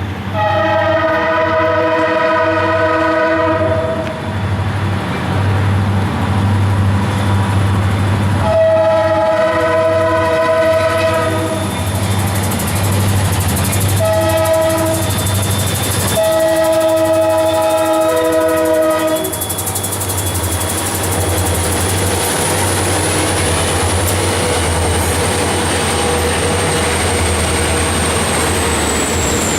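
Lead locomotive, an ex-Burlington Northern EMD SD40-2, sounding its horn for a grade crossing in the standard pattern: two long blasts, a short one, and a final long one, over the steady low rumble of the diesel engines. After the last blast, about two-thirds of the way in, the horn stops and the engines rumble on steadily, with a faint high whine that drops in pitch near the end.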